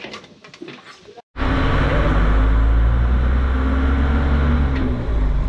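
Motor vehicle engine running steadily and loud, close to the microphone, starting abruptly a little over a second in after a moment of quiet ambience.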